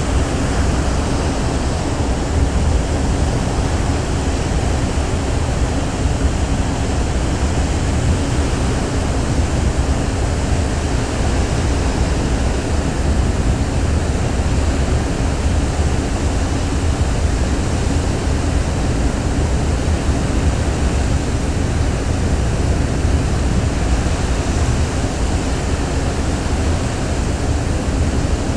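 Steady rush of wind and sea along a ferry under way, over a deep unbroken rumble with a faint steady hum.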